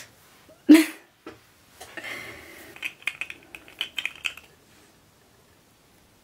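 A small glass nail-polish bottle being handled, with a quick run of light clicks and clinks from glass and cap about two to four seconds in. Before that, about a second in, comes one short loud thump.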